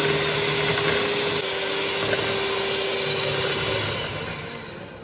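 Electric mixer whirring steadily as it mixes cake batter, then switched off, winding down and fading out about four seconds in.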